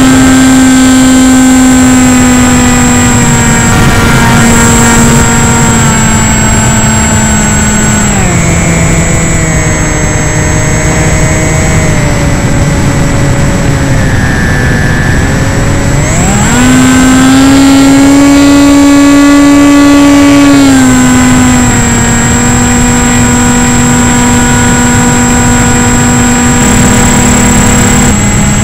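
Electric motor and propeller of an AXN foam RC plane, heard from an onboard camera in flight. It runs as one steady pitched whine that drops as the throttle is eased back about a third of the way in. It rises again past the middle as the throttle is opened, then steps down slightly, with a thin high whine and air rush underneath.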